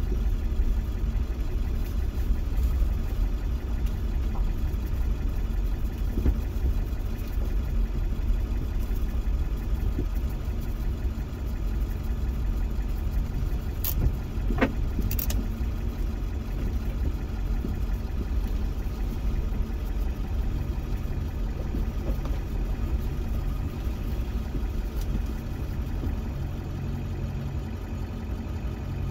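Pickup truck's 7.3-litre diesel engine running steadily with a low rumble, with two sharp clicks about halfway through.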